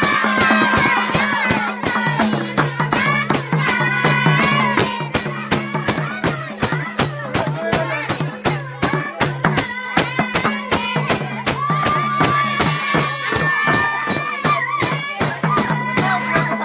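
Nepali folk music: a steady, fast beat of rattling percussion under a melody, with held low tones beneath.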